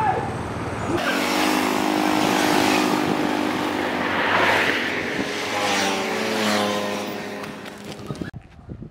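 A motor vehicle's engine running, its pitch slowly rising and falling. The sound starts abruptly about a second in and cuts off abruptly near the end.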